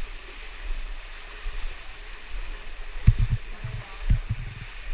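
Steady rushing hiss of a cave stream, with a few low thumps about three to four seconds in.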